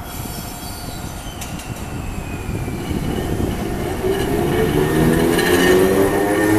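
Chikuhō Electric Railroad 3000 series tram pulling away and accelerating past, getting louder as it nears. From about four seconds in, the whine of its nose-suspended traction motors and gears rises in pitch.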